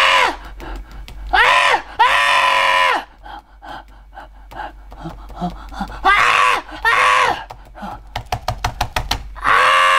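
A person voicing a monkey puppet with several drawn-out hoots and cries, each rising and then falling in pitch. Between the cries comes clattering typing on a laptop keyboard, fastest about eight seconds in.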